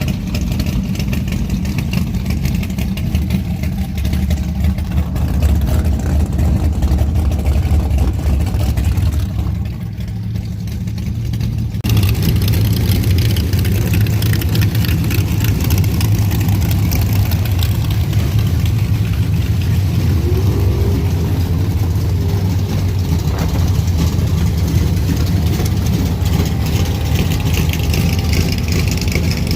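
Ford Mustang's 3.7 V6 with aftermarket intake and exhaust, running steadily without revving. The sound changes abruptly about twelve seconds in.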